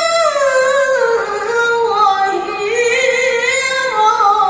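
A woman reciting the Qur'an in the melodic tilawah style, one voice holding long notes with wavering ornaments, gliding down in pitch over the first two seconds, rising again, then falling near the end.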